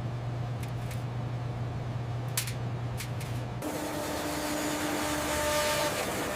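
Factory machinery noise: a steady low hum with a few light clicks, then about three and a half seconds in an abrupt change to a louder hissing machine sound with a steady whine.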